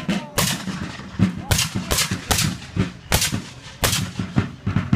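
Black-powder muskets fired by a line of Civil War reenactors in a ragged rolling volley: about a dozen sharp shots at uneven intervals, a few tenths of a second to half a second apart.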